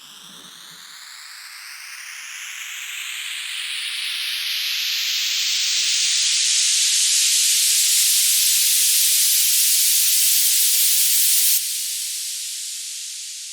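White-noise riser, a DJ transition effect: a hiss that swells louder and brighter for about seven seconds, holds at its peak, then drops suddenly near the end and fades out.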